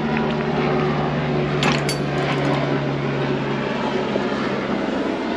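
A lawn mower engine running steadily in the background, its hum fading away shortly before the end. A few sharp metal clinks of a hand wrench on the crank pulley bolt about two seconds in.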